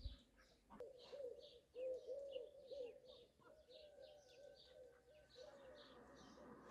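Faint outdoor birdsong: a small bird chirps at a high pitch about three times a second throughout. A run of low, repeated cooing notes starts about a second in and fades out about a second before the end.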